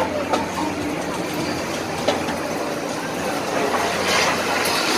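Steady background din of a busy fairground, with a low steady hum and a few short clicks.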